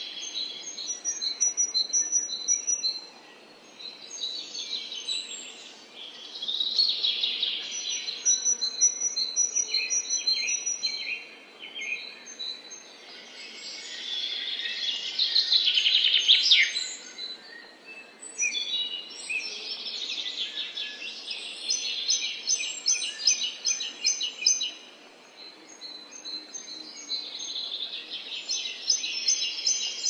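Several songbirds singing and calling over one another in a busy chorus of quick, repeated high notes and trills, coming in waves of a few seconds with brief lulls between.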